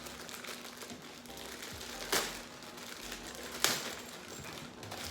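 Crinkling of packaging as a camera bag is unwrapped and handled, with two sharp clicks about a second and a half apart, over faint background music.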